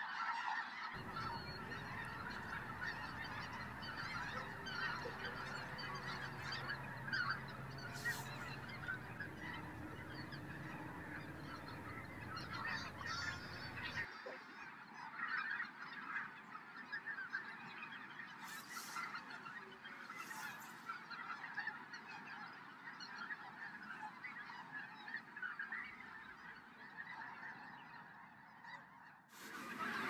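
A large flock of geese honking and calling all together in a dense, continuous chorus. For about the first half, a low rumble sits under the calls.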